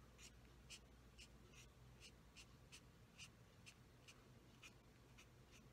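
Faint ticks of a fine-point marker tip on cardstock, about two a second, as short dots and strokes of colour are laid on a stamped butterfly's wings.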